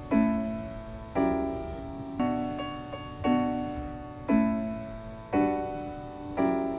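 Background piano music: slow chords struck about once a second, each fading away.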